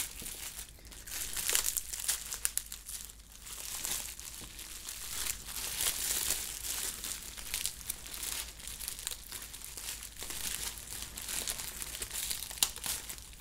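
Bubble wrap and plastic bags crinkling as hands unwrap a package, with irregular sharp crackles throughout.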